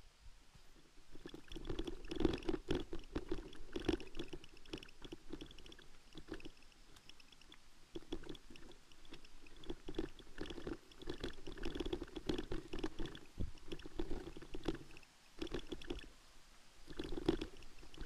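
Bicycle rattling and knocking over a rough dirt trail: an uneven run of knocks, crackles and rumbling that comes and goes, with short lulls about halfway through and again near the end.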